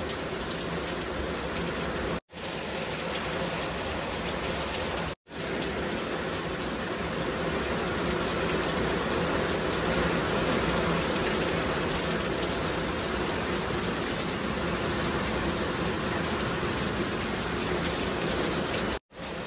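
Heavy rain pouring down in a steady, even hiss. The sound cuts out for a split second about two seconds in, again about five seconds in, and once more near the end.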